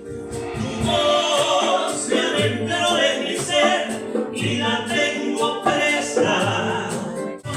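Singing with instrumental accompaniment, with a brief break just before the end.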